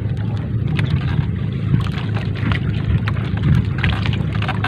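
A boat's engine runs with a steady low hum. Scattered light ticks and drips come from the wet 3-ply net being hauled in by hand over the side.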